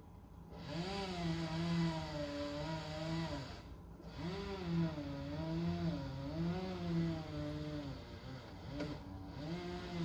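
Chainsaw cutting, starting about half a second in, its pitch sagging and rising with the load, with two short breaks about four and nine seconds in.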